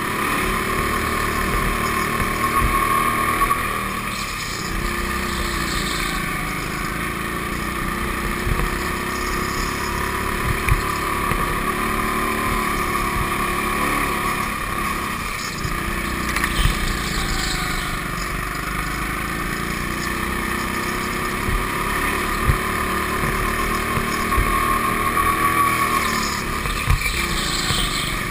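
Go-kart engine running steadily, its pitch rising and falling as the kart speeds up and slows. A few short knocks come through.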